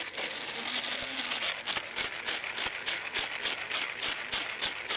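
Electric blender grinding Japanese spiny lobster heads into fishing chum: the shell breaks up as a dense, rapid crackling and crunching that runs without a break.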